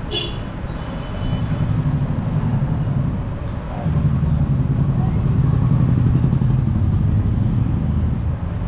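Royal Enfield Meteor 350's single-cylinder engine running steadily, growing louder about a second in and again near four seconds in.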